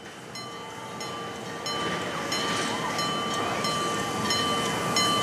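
Grade crossing signal bell ringing rapidly and steadily, about three strikes a second, fading in at first.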